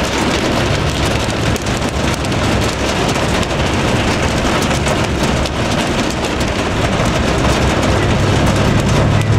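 Extremely heavy rain pelting a moving truck's roof and windshield, heard from inside the cab as a dense, steady patter of fine ticks over the low hum of the engine.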